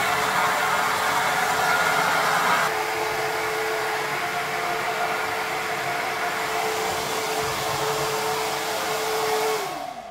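Handheld hair dryer running with a steady whine and rush of air, dropping a little in level about three seconds in. Near the end it is switched off and its motor whine falls in pitch as it spins down.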